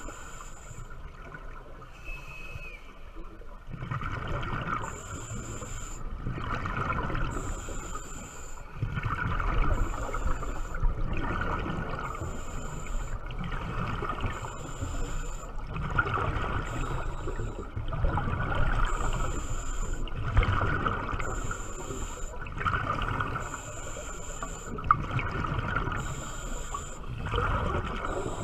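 A diver's breathing heard underwater: a short hiss of breath in, then a longer gurgle of exhaled bubbles, repeating every two to three seconds.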